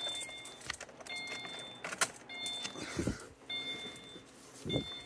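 A car's dashboard warning chime, a short two-tone beep repeating about every second, with keys jingling and a few light clicks and knocks.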